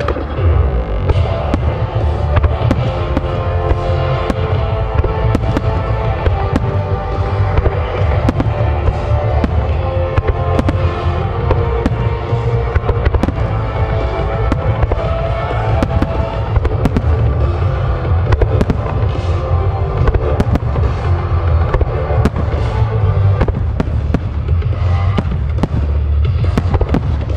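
A fireworks display with many shells and ground effects going off in quick succession: sharp pops and crackles over continual low booms, with music playing alongside.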